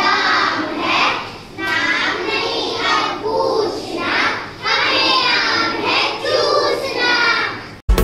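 Young children singing a song together in short phrases with brief pauses between them.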